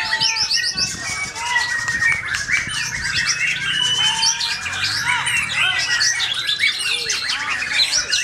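Many caged white-rumped shamas singing over one another in a dense, unbroken tangle of gliding whistled phrases and fast runs of repeated high notes.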